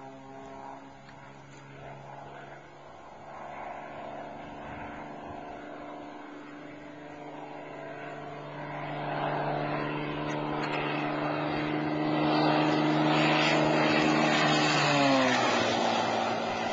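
Cessna AgTruck crop-duster's six-cylinder piston engine and propeller droning steadily, growing louder as the plane comes in on a low spraying pass. About fifteen seconds in the pitch drops sharply as it passes close by.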